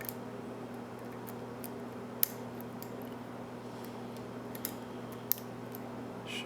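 Scattered small metallic clicks and ticks of a lock pick and tension wrench working the pin stack of a mortise pin-tumbler cylinder, the sharpest click just over two seconds in. A steady low hum runs underneath.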